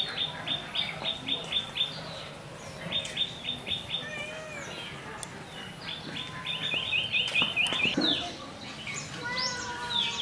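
Birds chirping: runs of sharp, rapidly repeated chirps, about five a second, broken off and restarted several times, with other varied bird calls toward the end.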